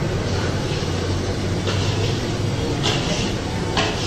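A sieve rubbing and scraping on a steel plate while rice flour is sifted, giving three short scratchy sounds about a second apart over a steady low background rumble.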